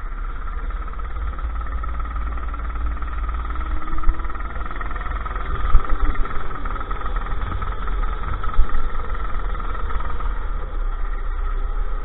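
Go-kart engine running under load, recorded on board the kart, its pitch shifting as the kart goes through corners over a heavy low rumble of wind and vibration. A few sharp knocks stand out about four, six and eight and a half seconds in.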